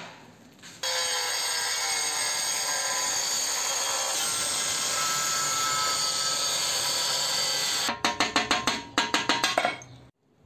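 Electric angle grinder running steadily while cutting a circular hole in a ceramic tile. About eight seconds in it breaks into a quick run of short loud pulses, then cuts off suddenly.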